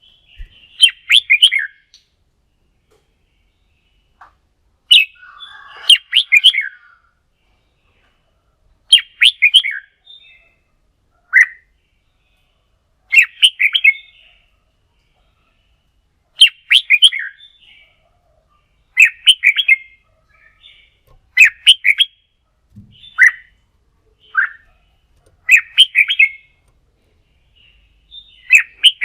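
Red-whiskered bulbul song: short, loud, warbling phrases repeated about every two to three seconds, with silence between, in the style of competition singing.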